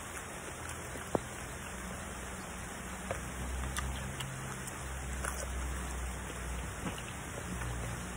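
Steady rain falling, an even hiss with a low rumble under it, and a sharp click about a second in with a few fainter clicks later, likely from chewing raw cucumber.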